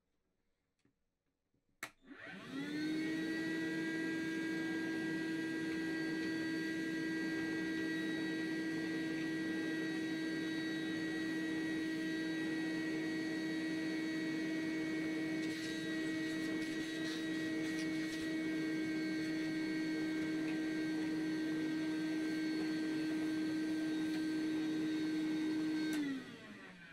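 Vacuum cleaner switched on with a click about two seconds in, its motor spinning up to a steady whine and running as it vacuums dust out of a PC case, then switched off near the end and winding down.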